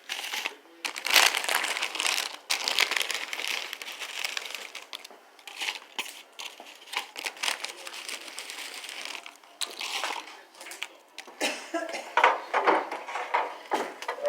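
Food packaging crinkling and rustling as it is handled, in irregular bursts with sharp clicks and crackles.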